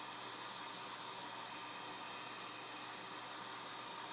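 Steady blowing hiss of a hot-air heat gun warming the phone's glass to about 160 °F to soften the adhesive under it.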